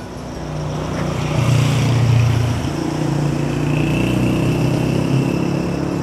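A motor vehicle's engine running with a steady low hum, growing louder over the first two seconds and then holding steady.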